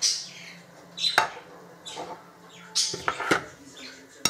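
A metal fork clinking and knocking against a plastic bowl and dishes: a sharp knock about a second in and two more close together around three seconds, with light scraping between.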